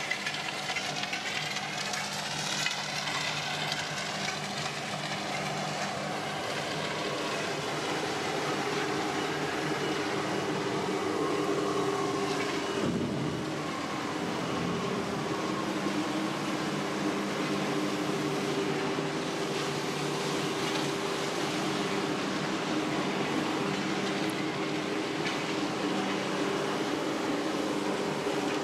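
Steady mechanical drone of heavy machinery at an aggregates works, with several low, even hum tones over a broad rushing noise.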